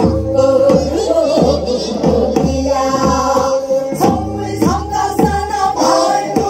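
Several women singing a Korean Namdo folk song together into microphones over a steady drum beat, with a few sharper drum strokes about four to five seconds in.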